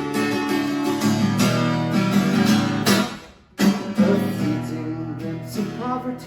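Acoustic guitar strumming chords in a steady groove. About halfway through the chords stop for a moment, then come back in with sharp strokes.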